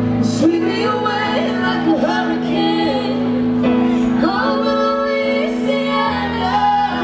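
Live country-pop song: a woman singing the lead melody over sustained stage-keyboard chords, amplified through a PA.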